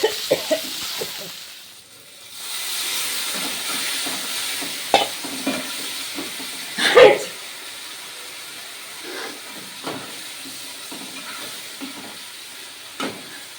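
Masala of ginger-garlic paste and coriander powder sizzling in hot oil in a kadhai while it is stirred, with a few spatula clicks. The sizzle drops briefly about two seconds in, and a short loud burst comes about seven seconds in.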